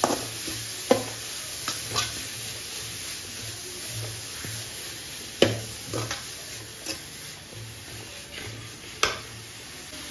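Grated carrot and onion sizzling as they are sautéed in an aluminium kadai, while a metal spatula stirs and scrapes, clinking against the pan at irregular intervals; the sharpest knocks come about five and nine seconds in.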